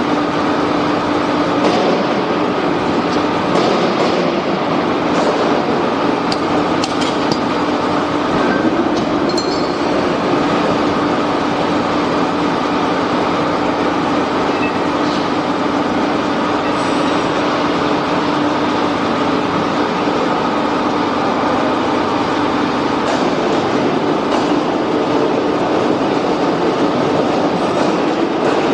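Steady, loud machinery noise with a constant hum, with a few faint metallic ticks from parts being handled in the first ten seconds or so.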